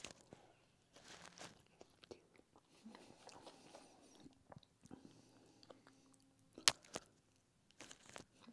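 Chewing and mouth sounds of a person eating with his fingers, picked up close by a clip-on microphone, with small clicks and handling noises. A single sharp click about two-thirds of the way through is the loudest sound.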